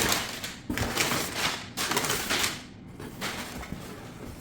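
Packaging being handled during an unboxing: several rustling, scraping swishes of cardboard and packing material, then quieter handling with a few small clicks.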